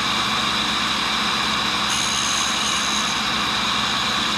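WWII-era tool and cutter grinder running steadily, its diamond cup wheel spinning while a tiny carbide cutter is held by hand against it to grind a radius on the cutter's nose. A thin high whine comes in about two seconds in and lasts about a second.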